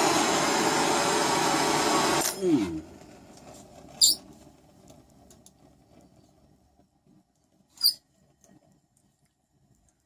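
An electric power tool's motor running steadily with a loud whir, switched off about two seconds in and winding down with a falling pitch. Afterwards only faint handling noises, with two sharp ticks a few seconds apart.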